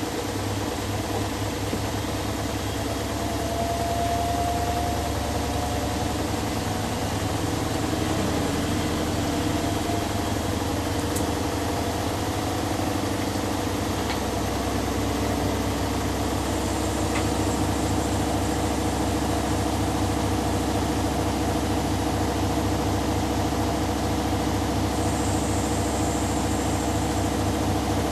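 Two front-loading washing machines, a Hoover Dynamic Next DXA610IW3 and a Beko Pro AquaTech WX94044EO, running their final spin cycles: a steady motor hum and drum vibration. The low pitch shifts about halfway through, and a faint high whine comes in after.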